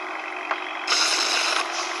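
A vehicle engine running steadily, with a sharp click about half a second in and a louder, brighter rush lasting under a second near the middle.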